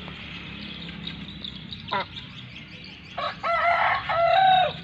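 A rooster crows once near the end, a short crow in a few rising-and-falling syllables, after a brief single call about two seconds in.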